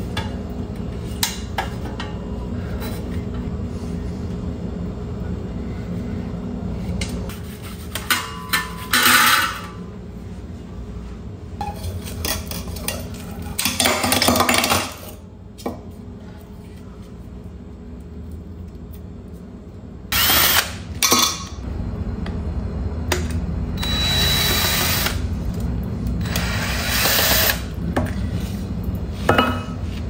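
Repeated scrubbing and rubbing bursts of a cloth worked over metal fan blades and stand tubes during cleaning, each lasting a second or so, over a steady low hum.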